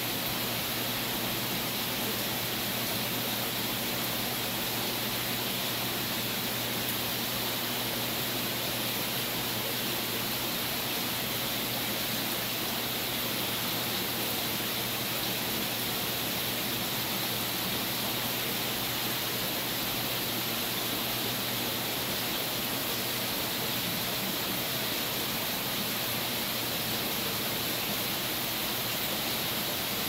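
Steady rushing hiss of running aquarium water circulation, water draining through the overflows and pumps turning it over, with a faint low hum underneath.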